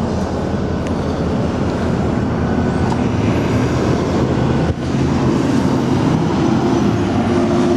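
A 2014 Harley-Davidson Street Glide Special's fuel-injected 103-inch V-twin idling steadily through an aftermarket Vance & Hines 2-into-1 exhaust.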